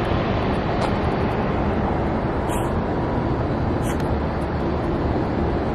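Steady low rumble of city traffic noise, with three faint short high hisses spread through it.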